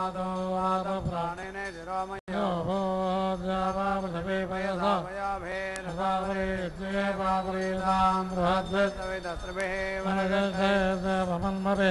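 Vedic mantras chanted in a steady recitation over a sustained drone, breaking off for an instant about two seconds in.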